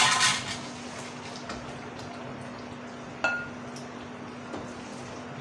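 A glass bowl and utensils handled over a nonstick karahi while thick curry is served out: a few soft clicks and one sharp, ringing glass clink about three seconds in, over a steady low hum.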